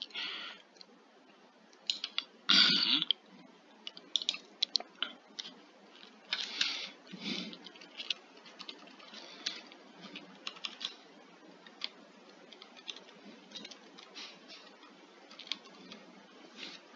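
Irregular computer mouse clicks and keyboard keystrokes, fairly quiet, with a louder burst of noise about two and a half seconds in.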